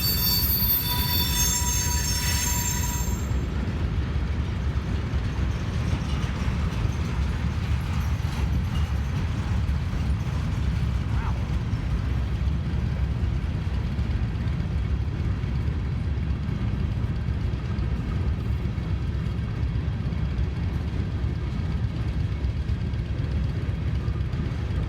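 Norfolk Southern mixed freight train rolling past as it slows. A high-pitched squeal of several tones stops about three seconds in, and after it there is a steady low rumble of the cars on the rails.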